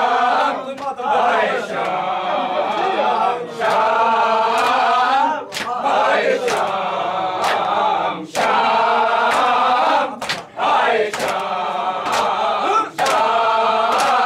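A group of men chanting a noha, a Muharram mourning lament, in chorus, with sharp slaps of hands beating chests (matam) every second or two.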